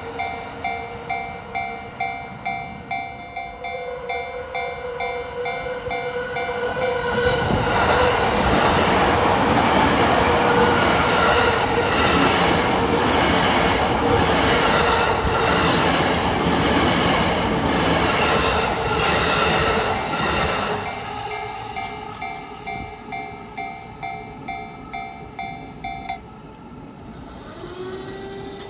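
A Japanese level-crossing warning bell rings in a steady electronic ding, a little under two a second, while a Yamanote Line electric commuter train passes through the crossing. For about fifteen seconds the train's wheels rumble and clatter on the rails, covering the bell. The bell rings on a few seconds after the train has gone, then stops near the end.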